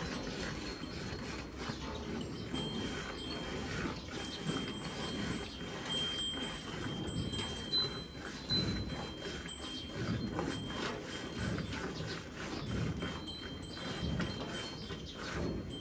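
A cow being milked by hand: rhythmic streams of milk squirting into a steel pail that already holds milk, about one or two strokes a second. A faint, steady, high ringing tone comes and goes behind it.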